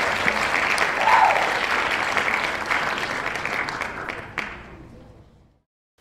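Audience applause: many hands clapping in a dense patter that fades away over the last two seconds.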